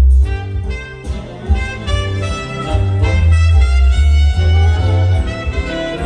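Big band swing with saxophones and brass, played back loud through 1976 Pioneer HPM-100 loudspeakers and picked up by a phone microphone in the room, with a strong bass line.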